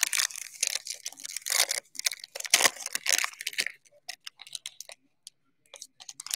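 Foil trading-card pack wrapper crinkling and tearing as it is pulled open by hand: dense crackling for about three and a half seconds, then a few light clicks and rustles.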